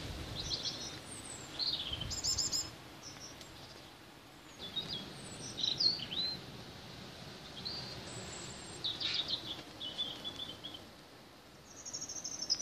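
Small birds calling, a scatter of short high chirps and brief trills coming every second or so, over a steady hiss of wind and rain.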